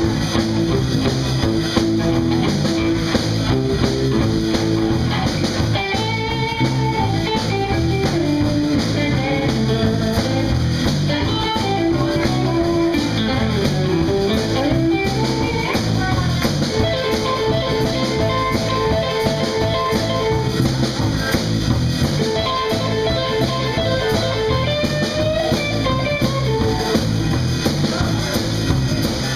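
Live blues band playing an instrumental passage, an electric guitar taking the lead with bent, gliding notes. In the second half the guitar settles into a short riff repeated over and over.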